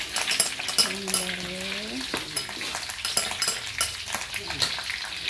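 Sliced seasonings tipped from a bowl into hot oil in a wok, sizzling and crackling with many sharp pops as they start to fry.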